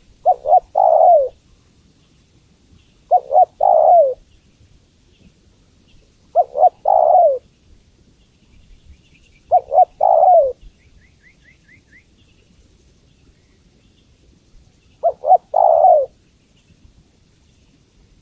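Female spotted dove cooing: five phrases, each two short notes followed by a longer falling coo, repeating about every three seconds with a longer pause before the last. Faint high chirps from a small bird come in briefly around the middle.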